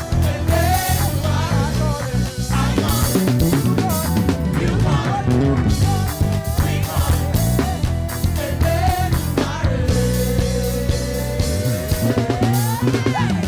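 Live gospel praise band playing an up-tempo groove: drum kit, bass and guitar, with busy melodic runs over the top. In the last few seconds one long note slides steadily upward in pitch.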